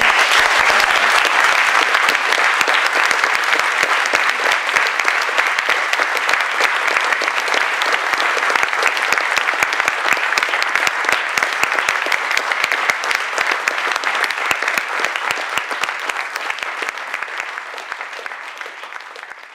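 Audience applauding steadily at the close of a talk, slowly fading out near the end.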